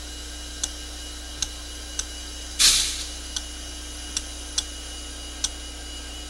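Coal hopper car wheels clicking over rail joints as a freight train rolls past, a sharp click every half-second to second over a steady hum. A short hiss comes about two and a half seconds in.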